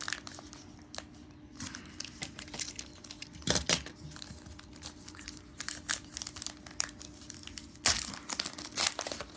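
A baseball card pack's wrapper being torn open and crinkled by hand, a run of short crackles with louder rips about three and a half seconds in and again near eight seconds.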